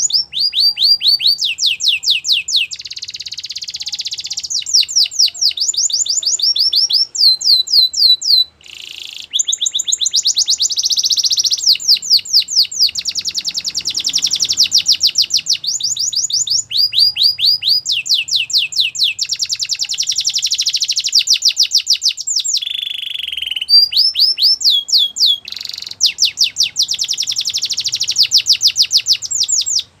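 Domestic canary singing a long song of rapid trills, each a fast run of short notes that drop in pitch, one phrase running into the next with only brief breaks about eight seconds in and near the end.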